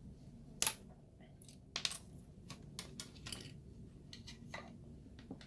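Hard plastic model-kit parts clicking as they are snapped off the runner and handled: one sharp snap just over half a second in, then a scatter of lighter clicks and taps.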